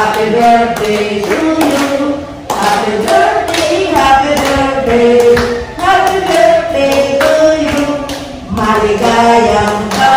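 An elderly woman singing into a hand-held microphone through a loudspeaker, in long held notes that glide between pitches. Sharp taps sound behind the voice now and then.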